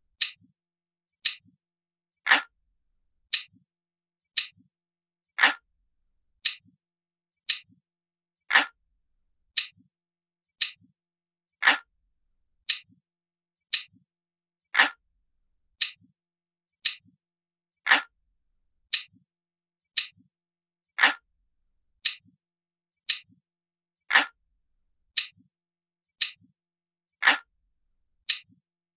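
Crisp, glass-like clock ticking sound effect, one tick about every second, with every third tick or so fuller and louder.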